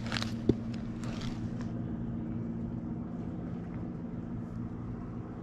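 Steady low hum of a running engine, with one sharp click about half a second in.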